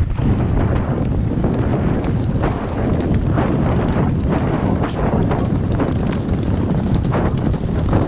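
Heavy wind buffeting the microphone at a gallop, with the hoofbeats of racehorses galloping on turf coming through it.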